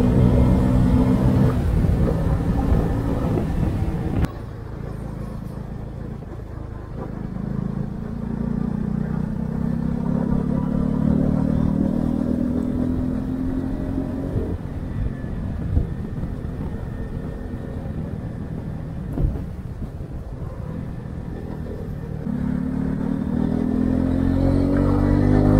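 Honda CB125R's 125 cc single-cylinder engine through its stock exhaust, heard from the rider's chest while riding. The engine note drops suddenly about four seconds in, climbs gradually through the middle, and rises again near the end as the bike accelerates. Two brief knocks come partway through.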